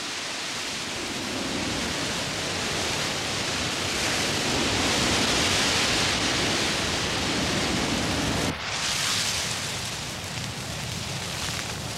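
Forest fire burning in a conifer stand: a steady rushing noise that grows louder around the middle and changes abruptly about eight and a half seconds in.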